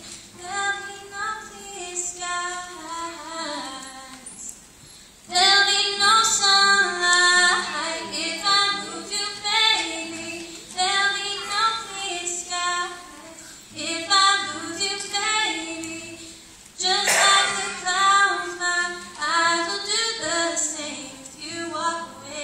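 A teenage girl singing a ballad solo with her own acoustic guitar, the guitar faint under the voice. The singing is soft at first and becomes much louder about five seconds in.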